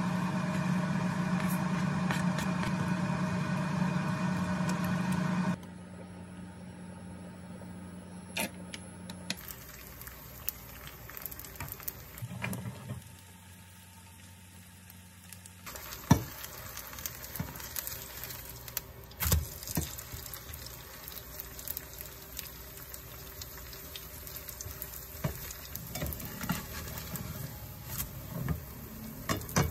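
A steady hum for the first few seconds. Then batter for a Korean chive pancake (buchu-jangtteok) sizzling in oil in a non-stick frying pan, with scattered clicks and scrapes from a spatula pressing it flat.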